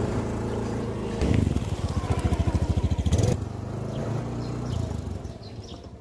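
Small motor scooter engines running as the scooters pull away. One engine gets louder about a second in, with a fast even pulsing for about two seconds, then eases off and fades.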